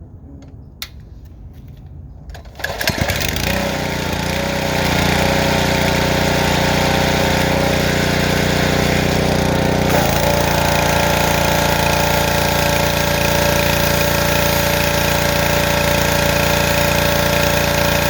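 An engine starts a few seconds in, builds up over about two seconds and then runs steadily.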